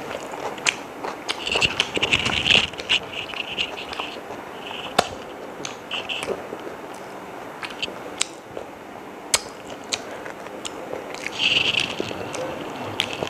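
A person chewing and eating chicken biryani, with scattered sharp mouth clicks and short crackly bursts.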